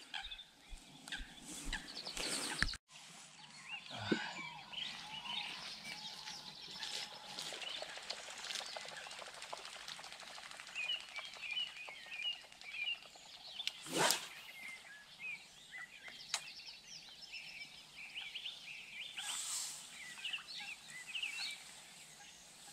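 Small birds chirping and singing in the background, with one sharp click about two-thirds of the way through.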